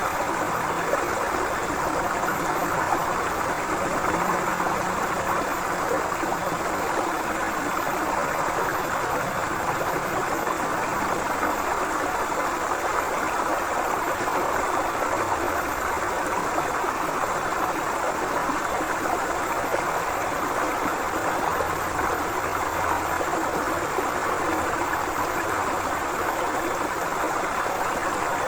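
River water flowing and splashing over rocks in a steady, unbroken rush.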